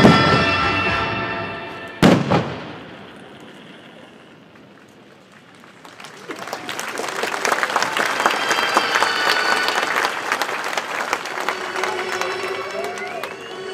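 Show music fading out, then a single loud firework bang with a quick second report about two seconds in. From about six seconds in, a crowd applauds, and new music begins near the end.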